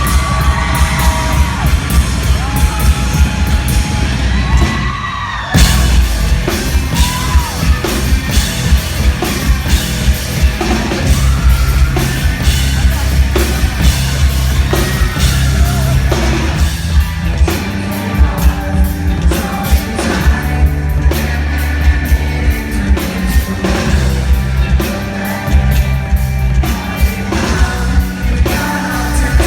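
Rock band playing live, loud and full, with a singer yelling and singing over drums and guitars. The music thins out briefly about five seconds in, then the whole band crashes back in.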